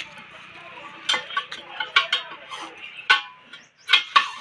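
Steel tyre lever clinking against a tractor's front wheel rim as the tyre is levered by hand, about five sharp metallic strikes spread over the few seconds.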